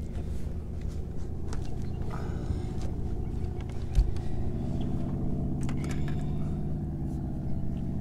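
Bass boat's outboard motor running steadily at low speed, with a single thump about four seconds in.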